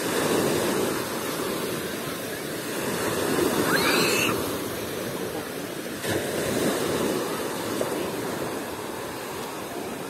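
Small sea waves washing onto the beach in a steady rush, with faint distant voices of people bathing. A brief high call rises above it about four seconds in.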